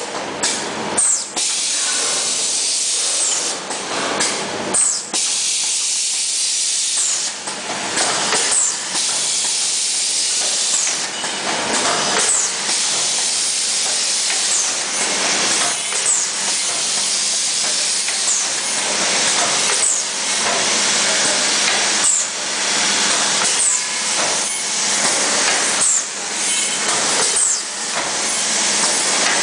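Automatic cup filling and sealing machine running: a steady loud hiss with short clacks that recur, settling into about one every two seconds as the chain conveyor indexes the cup moulds.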